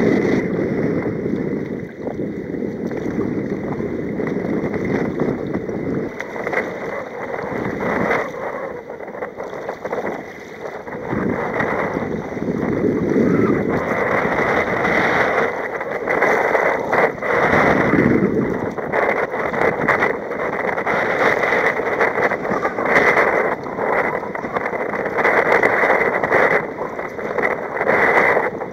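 Choppy sea water rushing and splashing against a sea kayak's hull as it moves through broken tidal waves, with wind buffeting the microphone.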